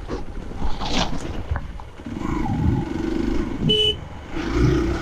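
Hero Xpulse 200 single-cylinder engine running over a rough dirt trail, louder in two spells in the second half. A single short horn beep sounds about three-quarters of the way through.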